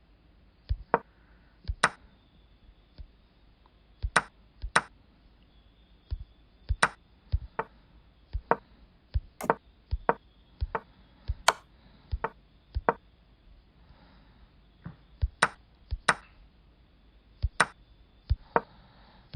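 A string of short, sharp clicks, irregularly spaced at about one or two a second, some with a brief high ping, as the moves of a chess game are stepped through one by one.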